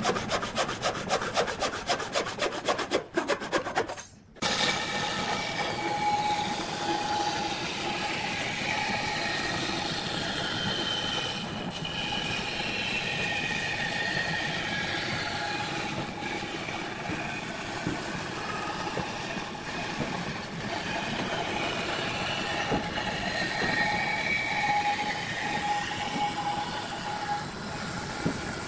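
Band saw cutting a thick rough-sawn wooden board along a curve: steady sawing hiss over the whine of the running blade. A fast rattling rhythm comes first, then a brief gap about four seconds in, and the steady cut follows.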